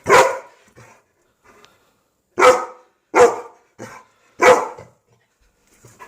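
Dog barking in short, loud, separate barks, four strong ones with a few weaker ones between: agitated alarm barking at a moose.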